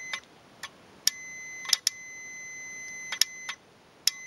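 A winch solenoid on a Warn M8000 solenoid pack clicks closed and open several times as its trigger circuit is grounded. A multimeter's continuity beep, a steady high tone, sounds while the contacts are closed, once for about two seconds. The click together with the beep shows that the solenoid is working and switching power across its posts.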